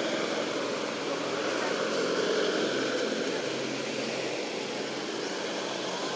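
Steady distant engine hum, slightly louder around the middle.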